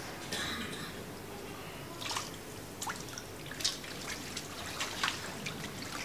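Water dripping and trickling in an indoor baptismal pool, with a scattering of small irregular drips and splashes as people move through the water.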